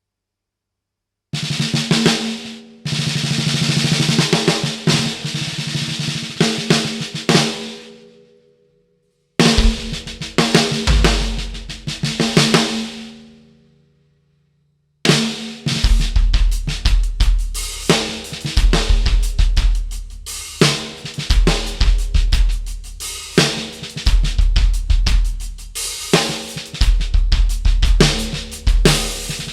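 Dixon 14x6.5 Classic Series snare drum (6-ply maple shell, Evans UV1 batter head) played on its own in a quick run of strokes that rings out and dies away. A second passage adds deep bass-drum beats and also dies away. About halfway through, a full drum-kit groove starts and keeps going, with steady bass-drum beats, hi-hat and the snare.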